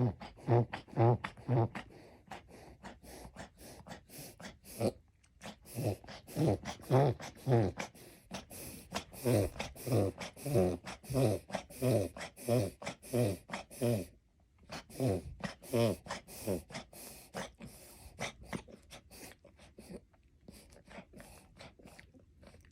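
Miniature dachshund reverse sneezing: repeated forceful intakes of breath through the nose, about two a second, with a brief pause about fourteen seconds in, weakening and dying down near the end. The owner links these episodes to changes in air pressure.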